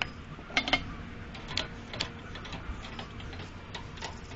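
Butane utility lighter clicking several times as it is fired to light lighter-fluid-soaked charcoal, sharp ticks in the first two seconds with a quick pair the loudest, then fainter ticks.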